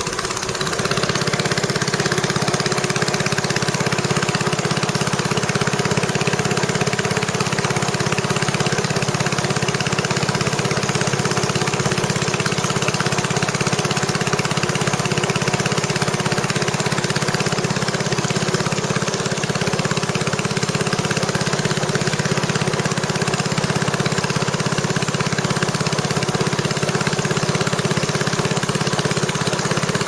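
Small boat's engine running steadily at an even speed, a continuous drone with no changes in pitch.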